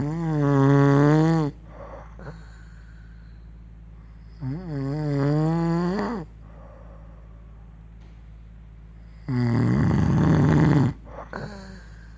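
Someone snoring: three long snores about four seconds apart, the first two with a wavering, almost sung pitch and the third rougher and raspier, each followed by a short faint breath.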